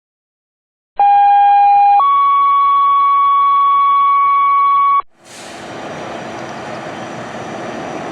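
Two-tone sequential fire dispatch alert tone: a steady tone for about a second, stepping up to a higher steady tone held for about three seconds, which cuts off suddenly. After it comes a steady wash of street traffic noise.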